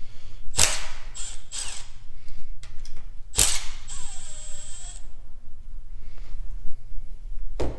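Cordless drill-driver backing bolts out of the bracket on an Allison 1000 transmission's valve body: short bursts of the motor, then about four seconds in a second-long run of steady motor whine as a bolt spins free.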